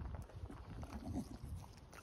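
A Staffordshire bull terrier gnawing and mouthing a raw pork trotter: irregular wet chewing with uneven clicks and soft knocks of teeth on the trotter.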